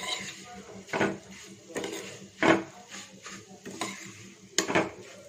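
Steel ladle stirring vermicelli as it roasts in ghee in a steel kadai: repeated scrapes and clinks of metal on metal, roughly one every 0.7 seconds, some with a short ring.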